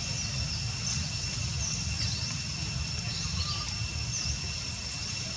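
Forest ambience: a steady, high-pitched insect drone with scattered short bird chirps over a low rumble.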